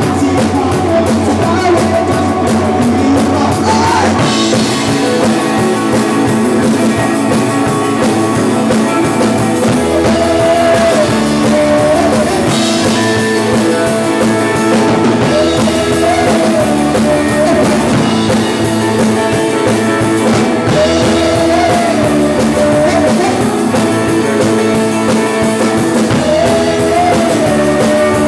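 Rock band playing live on two electric guitars and a drum kit, loud and continuous.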